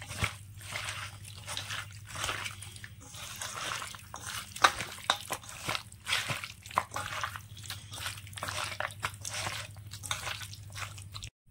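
Wet food being mixed in a pot or bowl: irregular squishing and sloshing with a few sharp clicks, over a steady low hum. It cuts off abruptly just before the end.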